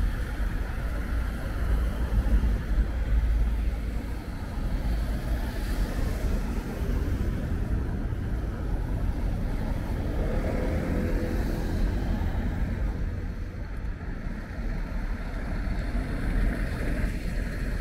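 Street traffic on wet cobblestones: car tyres hissing over the rain-soaked road, with a steady low rumble underneath.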